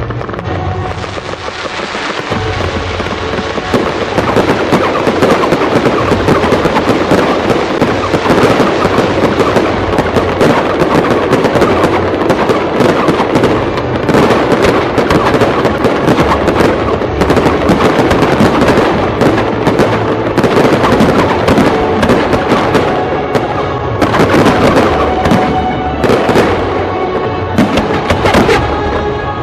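Aerial fireworks display: a dense, continuous barrage of bangs and crackling shells. It builds over the first few seconds and stays loud, then breaks into separate bursts near the end.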